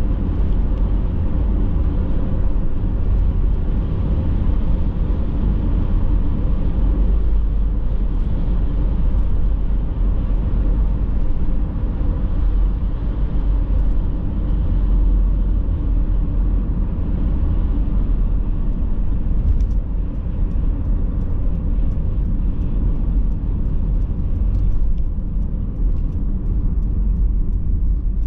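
Steady low rumble of a car's tyres and engine at road speed, heard from inside the cabin.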